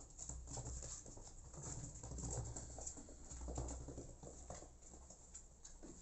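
Kittens' paws scuffling and tapping on cardboard as they play-wrestle: a faint, irregular patter of small scrapes and taps.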